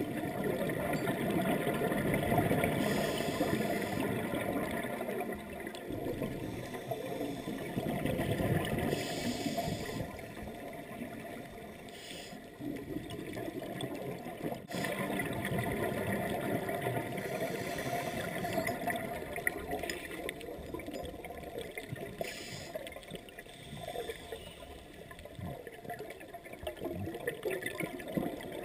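Underwater sound of scuba divers breathing through their regulators: a muffled rush and gurgle of exhaled bubbles that swells and fades every few seconds.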